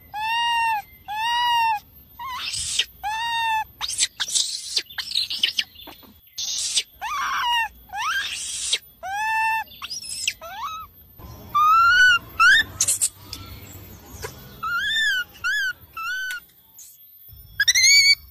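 Baby monkey screaming for its mother: a rapid series of high squealing calls, each about half a second and arching up then down in pitch, mixed with harsher, rougher shrieks, with a short lull near the end before one more rising squeal.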